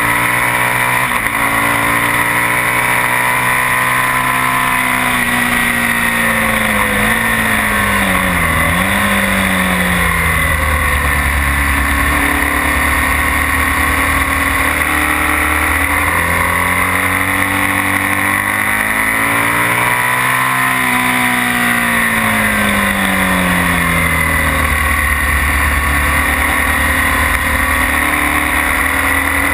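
BMW R1200S's flat-twin engine pulling hard at track speed, its pitch falling and rising several times as the revs change, with a sharp dip and recovery about eight seconds in. Strong wind rush runs steadily underneath.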